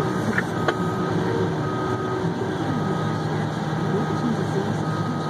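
Haul truck's diesel engine running steadily, heard from inside the cab, with a warning alarm beeping about once a second. A single click comes a little under a second in.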